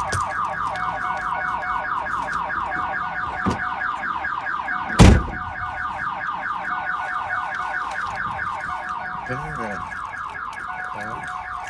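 A 1997 Pontiac Firebird's car alarm sounding continuously, a fast electronic warble of repeating chirps and steady tones. The triggered alarm is keeping the car from starting. One loud thump about five seconds in.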